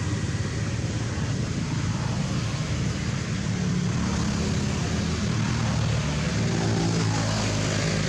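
A steady, low engine drone that grows a little fuller after about six seconds.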